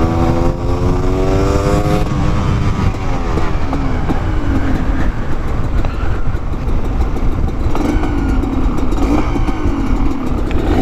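Honda CRM250R's two-stroke single-cylinder engine pulling under way, its pitch rising for about two seconds, then dropping and climbing again, with steady wind rumble on the helmet microphone.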